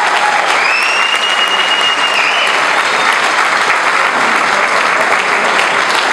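Audience applauding: dense, steady clapping. A thin, high steady tone sounds over it for about two seconds, starting about half a second in.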